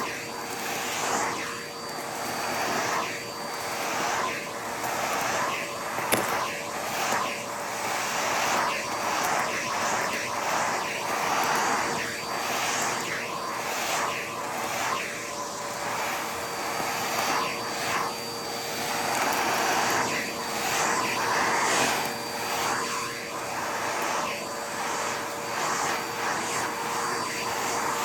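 Vacuum cleaner running with a constant motor whine, its suction noise swelling and fading every second or so as it is pushed back and forth. Over it comes a scattered crackle of debris being sucked up.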